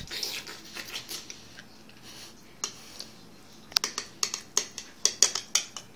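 Slurping noises from a spoon at first, then a rapid run of about a dozen sharp clinks as a metal spoon scrapes and taps against a ceramic bowl to scoop up Jell-O.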